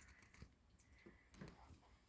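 Near silence, with two faint soft sounds about half a second and a second and a half in.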